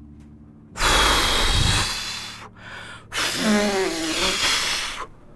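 A man blowing two forceful breaths straight into a close microphone: a long hissing blast about a second in, then after a short gap a second breathy blast with a groaning voice in it that falls in pitch. It is a vocal effect standing in for a deep, muffled shout.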